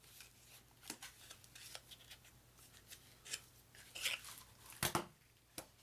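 Packaging of a boxed card game being opened by hand: scattered short scrapes, rustles and clicks, with the sharpest snap a little before the end.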